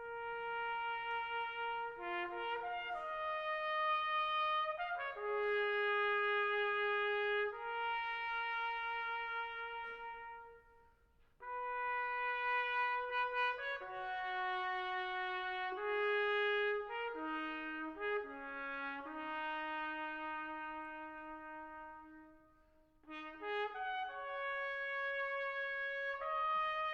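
Slow brass music led by trumpet, played as held notes in three phrases with short breaks between them.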